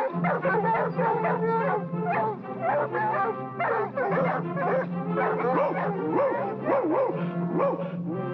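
Several cartoon dogs barking and yelping in quick, wavering calls over orchestral cartoon music with steady low held notes.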